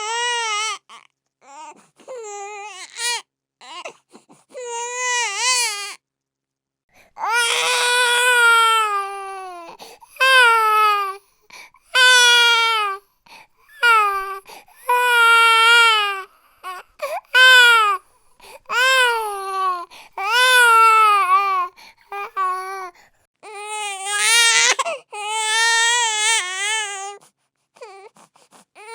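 Infant crying hard in a string of wavering wails, each a second or two long with quick breaths between, and a short pause about six seconds in.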